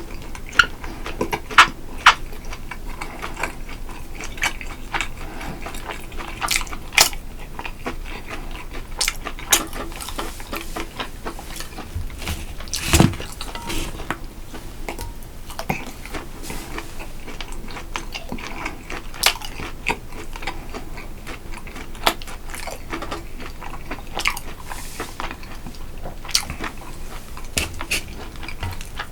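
A man chewing and biting food close to the microphone, with irregular sharp clicks and light knocks throughout; the loudest comes about 13 seconds in.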